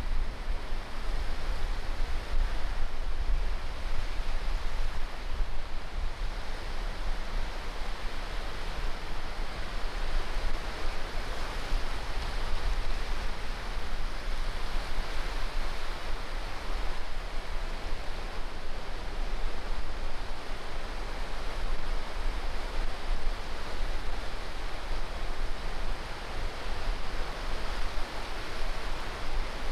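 Small waves breaking and washing up a sandy beach: a steady, even wash of surf with a constant low rumble underneath.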